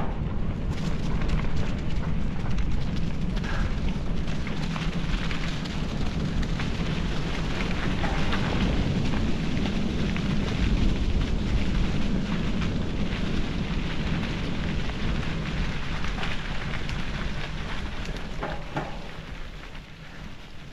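Bicycle riding over a rough farm trail: wind rumbling on the microphone with the tyres' rolling noise and many small crackles, easing off near the end.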